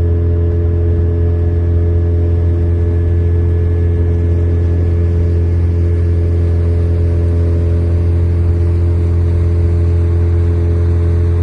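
Boat engine running steadily at a constant speed, with a deep even drone.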